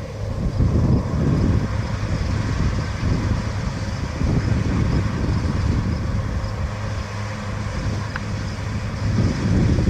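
New Holland CR9070 combine running steadily under load while harvesting soybeans, a constant engine and machinery hum. Gusts of wind buffet the microphone, swelling about a second in and again near the end.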